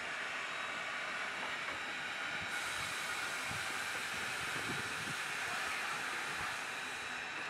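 Steady hiss of steam from two double-headed steam locomotives, a 2-10-0 and a 4-8-0, moving slowly, with a few faint low rumbles. The hiss grows brighter about two and a half seconds in.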